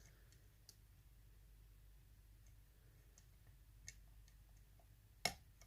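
Faint, scattered ticks of a lock pick working the pin stack of a Sargent mortise cylinder under light tension, with one sharper click about five seconds in, a pin (pin 3, by the picker's count) clicking as the pick passes.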